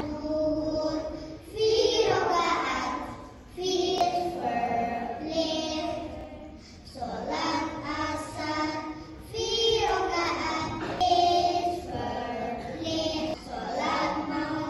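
A group of young children singing together into a handheld microphone, a song about the five daily prayers, in short phrases with brief breaths between them.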